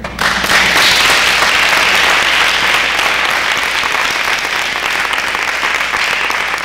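Audience applauding: a dense, steady clapping that starts at once and eases off slightly toward the end.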